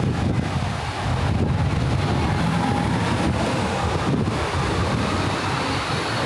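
City street ambience: wind buffeting the microphone with a steady, uneven low rumble over the sound of passing road traffic.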